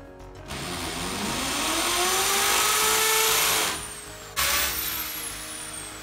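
Corded electric drill boring into a wall, its pitch rising as it runs for about three seconds. It stops, starts again sharply about a second later, then tapers off.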